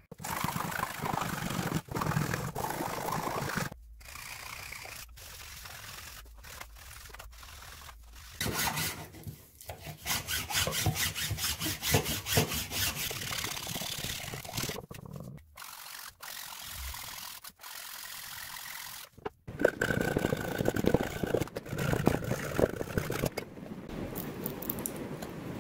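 Metal hand file rasping in repeated strokes along a wooden wand, in a series of short clips, with a blade paring the wood of the carved handle near the end.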